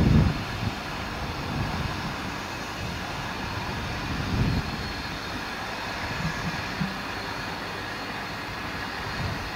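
Steam hissing steadily from the cylinder area of Finnish Hr1 Pacific steam locomotive no. 1009 as it stands at the platform. A low rumble fades out in the first moment, and a brief low swell comes about four and a half seconds in.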